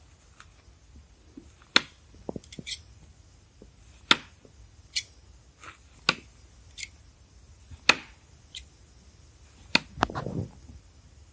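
Throwing knives thrown one after another, their blades striking a wooden target: a series of sharp knocks, about six, a second or two apart.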